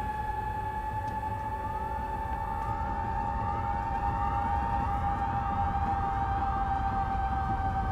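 Sirens wailing, several rising and falling tones crossing one another, over a steady high drone and a low rumble. The sirens join in about a second in and grow fuller toward the end.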